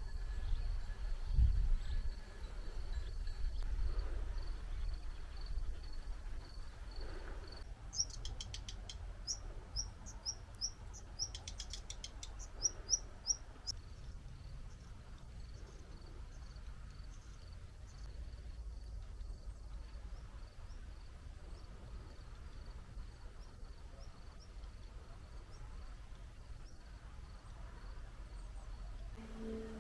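Songbirds singing outdoors. One repeats a short high note steadily, and from about eight seconds in another gives runs of quick chirps for several seconds. A low rumble runs underneath.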